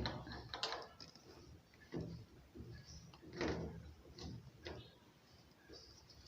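Scattered light knocks and clicks of plastic parts being handled and pushed into place on a front-load washing machine, the two clearest about two seconds and three and a half seconds in.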